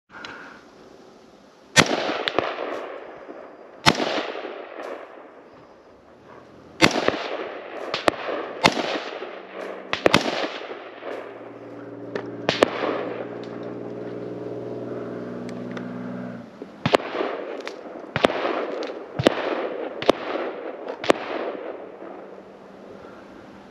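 A volley of gunshots from deer hunters during a drive: more than a dozen shots at irregular intervals, often a second or two apart, each with an echoing tail. A low steady hum runs for a few seconds midway.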